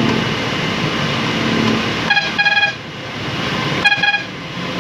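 A vehicle horn honking twice in quick double toots, the pairs about two seconds apart, a high single-pitched beep. Underneath, the steady noise of the bus's engine and tyres on the wet road, heard from inside the cabin.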